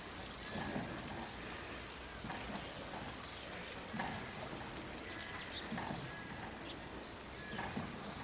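A Grévy's zebra cropping and chewing cut grass, with short low crunching bites about once a second.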